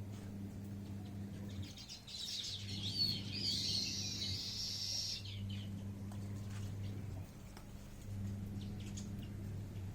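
A songbird singing, with a burst of quick high chirps and warbling gliding notes about two to five seconds in and a few scattered chirps after. Under it runs a low hum that comes and goes every second or two.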